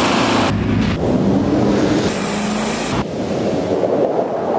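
BMW X5 SUV driving hard through soft desert sand: engine running under load beneath a loud rushing noise of tyres churning sand and wind. The sound changes abruptly about three seconds in.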